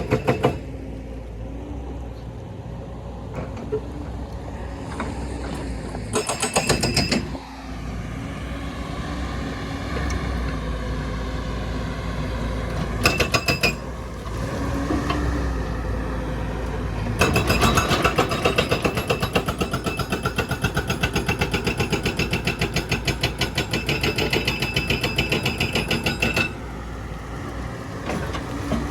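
Excavator's diesel engine running, with a hydraulic breaker hammering in rapid, evenly spaced blows: two short bursts, then a long steady run of blows lasting about nine seconds before it stops.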